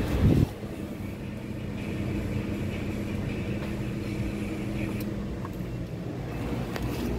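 A short loud thump, then a Geely Coolray's engine idling as a steady low hum heard inside the cabin, running after a jump start from another car's battery.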